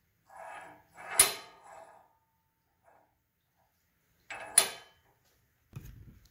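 A steel axle-jig bar being turned by hand inside a Ford 8.8 rear axle housing, to check whether the heat-straightened tubes line up. Two sharp metallic clacks, one about a second in and one about four and a half seconds in, with softer scraping around each, and camera handling noise near the end.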